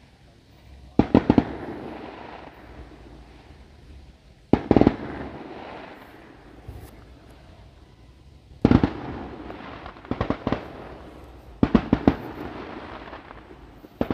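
Aerial fireworks shells bursting: clusters of sharp bangs every few seconds, each trailing off in a rolling echo.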